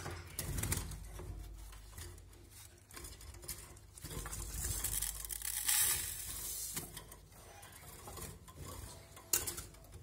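Mixed bird seed poured by hand into a yellow plastic cage feeder: a rattling trickle of seed strongest for a few seconds in the middle, with knocks of the plastic feeder being handled and set down in the first second.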